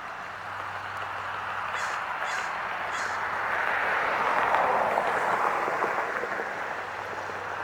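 Crows cawing over a rushing noise that swells to its loudest about halfway through and then eases off.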